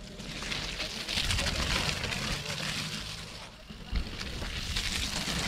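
Mountain bikes rushing past on a wet, muddy trail: tyres hissing and spraying through mud and water. The rush swells twice, with a sharp knock about four seconds in.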